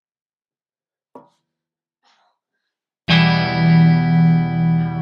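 Near silence for about three seconds, with one brief faint sound about a second in. Then a distorted guitar chord is struck suddenly and rings on with a slow wavering pulse.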